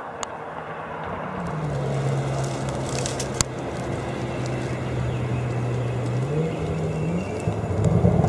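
Chevrolet Corvette C8 Z06 test car's flat-plane-crank V8 driving past at a steady engine note that climbs in pitch near the end as it revs up, growing louder toward the close. A single sharp crack sounds about three and a half seconds in.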